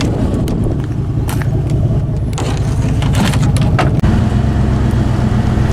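Pickup truck engine running in the cab, with scattered rattles and clicks; the engine note changes about four seconds in.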